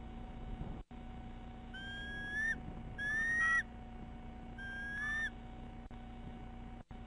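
Bald eagle calling: three high, thin whistled notes, each about half a second long and rising slightly at the end, over a steady faint electrical hum.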